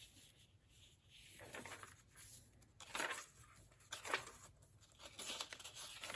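Pages of an old hardcover book being handled and turned: several soft paper rustles spread a second or so apart.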